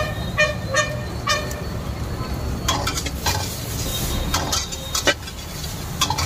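Steel spatula scraping and clanking against a wok as egg fried rice is stir-fried, with sizzling. Three short honks sound in the first second and a half, before the scraping grows busier.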